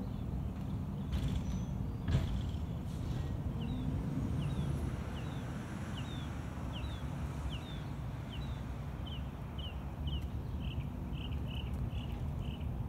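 Distant diesel engine of a Mack side-loading recycling truck, a steady low rumble, with a few knocks in the first three seconds. From about three and a half seconds in, short high chirps repeat about twice a second.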